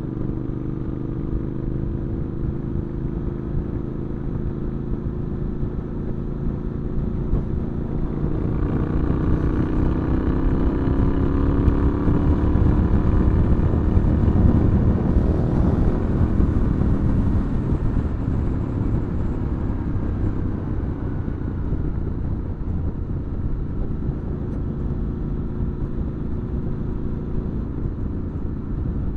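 Triumph Scrambler 900's parallel-twin engine running through an Arrow exhaust at road speed. About eight seconds in it is opened up and climbs in pitch and loudness, with wind rush building on the microphone. It then eases back to a steady cruise.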